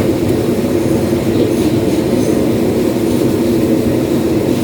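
Steady, loud, low mechanical drone with no breaks or distinct events.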